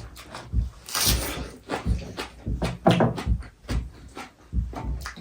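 Eating sounds: a string of irregular short smacks, slurps and knocks from someone eating goat soup with rice, with a louder hissy slurp about a second in.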